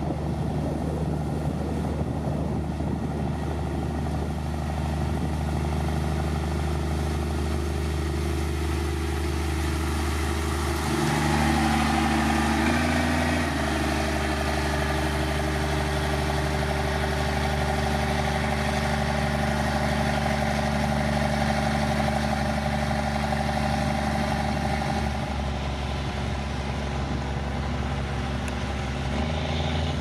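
Diesel engine of heavy road-building machinery running steadily. About eleven seconds in its note shifts and it grows a little louder for a few seconds, as under load, then settles.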